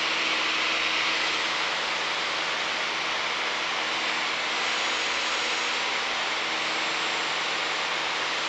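Steady cockpit drone of a Piper Warrior light airplane in flight, its four-cylinder piston engine and propeller running under an even hiss of airflow.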